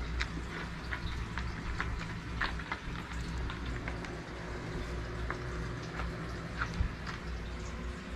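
Basset hounds close to the microphone, licking, mouthing and shuffling: scattered small wet clicks and smacks at an uneven pace, over a low steady hum.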